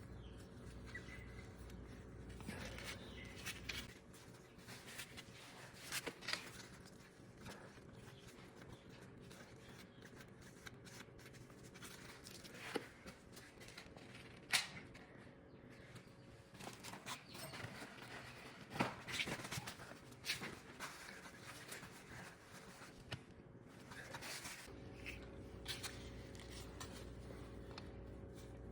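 Faint hand work under a dirt bike: scattered clicks, taps and rubbing as a drain bolt under the skid plate is wiped clean and worked loose with hand tools, over a low steady hum.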